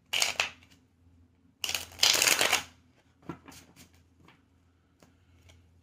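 A deck of tarot cards being riffle-shuffled. There is a short burst of flicking cards, then a longer riffle of about a second, followed by a few light taps and clicks as the deck is squared.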